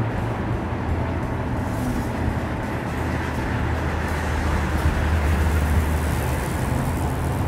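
Porsche Macan SUV driving at highway speed: a steady low engine drone over tyre and road noise on asphalt, the drone growing somewhat louder partway through.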